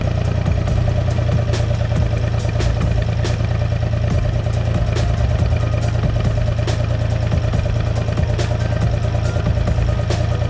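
UTB 445 tractor's diesel engine running steadily, with irregular sharp clicks and rattles throughout.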